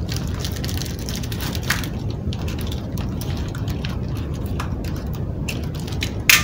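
Hands handling and pulling open a taped foam package: rustling and scattered small clicks of tape and foam, with one sharp click near the end. A steady low rumble lies underneath.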